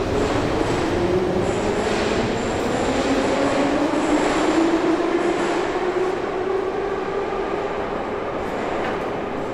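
Kyiv metro train running through the station, its motor whine dipping and rising in pitch, with a thin high squeal for a few seconds partway through.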